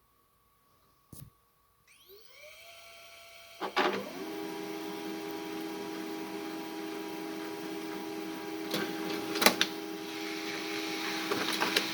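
Samsung laser printer starting a print job: a single click, then its motors spin up with a rising whine about two seconds in, a clunk just before four seconds, and then it runs steadily, with sharp clicks about halfway through as it feeds and prints. It is printing normally on thick 160 g cardboard after its stuck drum was freed and cleaned.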